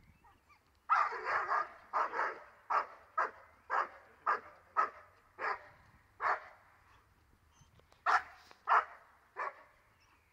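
Young 13-month-old shepherd dog barking at the helper during protection training: a quick burst of barks about a second in, then single barks coming more and more slowly, a pause of over a second, and three more barks near the end.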